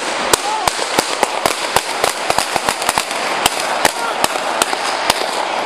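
Exchange of gunfire: a rapid, uneven string of about twenty sharp shots, three to four a second, over a steady hiss, picked up close on a police body-worn camera.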